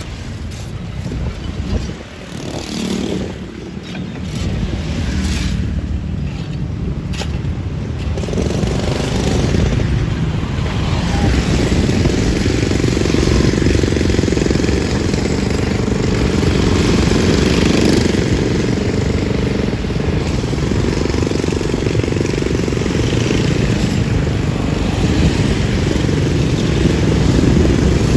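Motorbike and scooter traffic passing close by on a bridge roadway: a continuous rumble of small engines and tyres that grows louder about eight seconds in.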